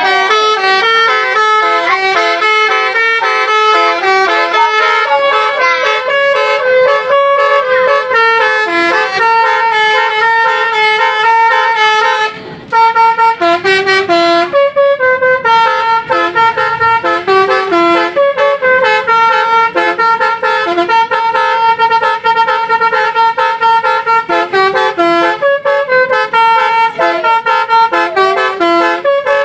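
Basuri telolet bus horn, a multi-trumpet air horn, playing a tune: stepped notes changing several times a second over a steady held tone, with a brief break about twelve seconds in.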